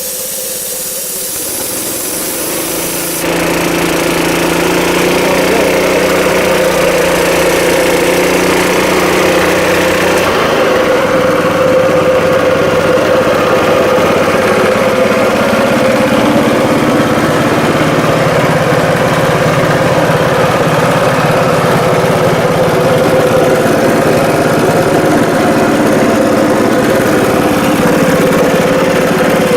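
An air blow gun hisses for about three seconds, then stops. The Honda GX160 engine of a gas-powered air compressor runs on with the pump, speeding up to recharge the tank, changes again about ten seconds in, and then runs steadily.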